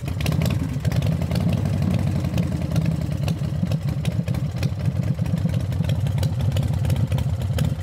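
Motorcycle engine idling steadily with a fast, even pulsing beat.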